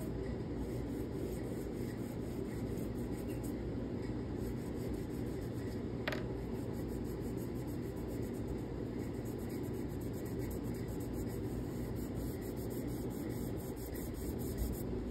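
Chalk pastel stroking across paper and fingertips rubbing the pastel into it, a soft steady rubbing, with one light click about six seconds in.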